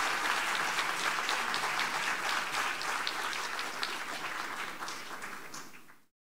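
Audience applauding, fading gradually and cutting off abruptly near the end.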